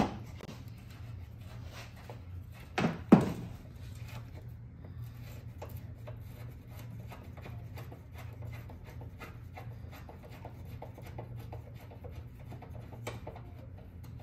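Hand tools working on the engine-bay bolts: two sharp metallic clanks about three seconds in, then scattered light clicks, over a steady low hum.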